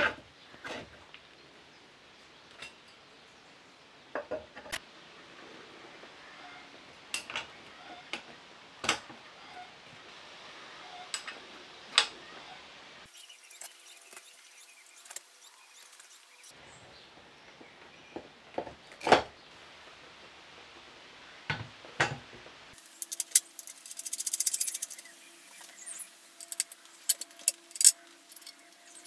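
Steel tiller parts being fitted by hand: tines, bolts and the painted gearbox housing clinking and knocking against each other in scattered single strikes, with a denser run of rattling near the end.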